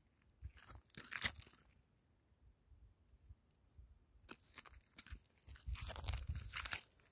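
Dry gravel and grit crunching on stony desert ground, in a short cluster about a second in and a longer run from about four seconds on, with a low rumble under the later run.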